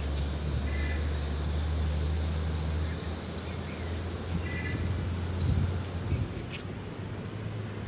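Outdoor ambience: small birds chirping now and then, short calls and quick glides in pitch, over a steady low rumble that is louder in the first three seconds.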